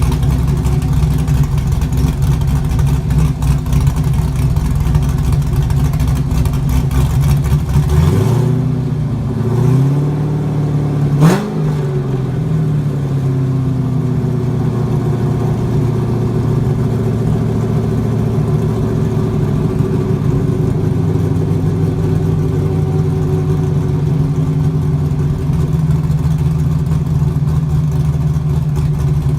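LS1 V8 idling through an exhaust with no rear mufflers, loud and low. About eight seconds in the revs rise and hold briefly, with a quick sharp blip around eleven seconds, then it drops back to a steady idle.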